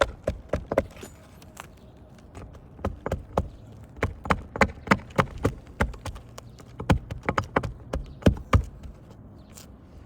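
Hand tools knocking against asphalt roof shingles in sharp, irregular taps, several a second in bursts with short pauses, as a creased shingle is worked loose from its nails.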